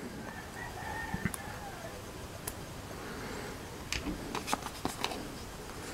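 Quiet room with light handling noise: a few faint, sharp clicks of small plastic toy parts and a sticker sheet being handled on a tabletop, most of them bunched about four to five seconds in.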